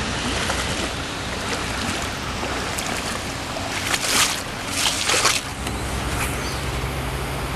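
Steady rush of flowing river water, with two short, louder rushes about four and five seconds in.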